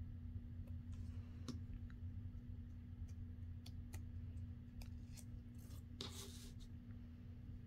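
Faint handling of paper and card: scattered light clicks and taps, and a brief papery rustle about six seconds in, over a steady low hum.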